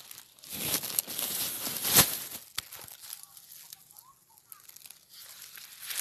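Dry corn leaves and husks rustling and crackling as corn is handled and picked, with a sharp crack about two seconds in. The rustle dies down in the middle and picks up again near the end.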